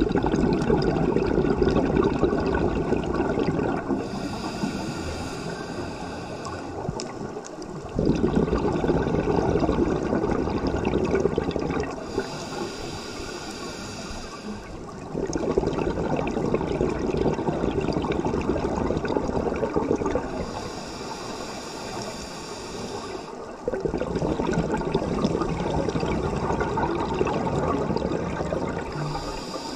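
Running water, a steady rushing noise that steps abruptly louder and quieter every few seconds.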